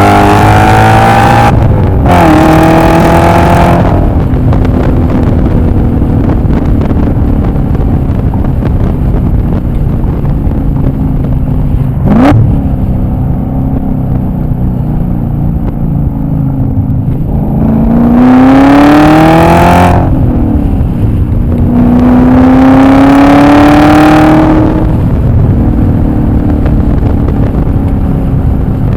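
E39 BMW M5's 4.9-litre V8 accelerating hard through the gears: the revs climb, drop at an upshift about a second and a half in, and climb again. It then runs more steadily with a quick blip of revs partway through, before two more hard pulls near the end, each a rising climb of two or three seconds.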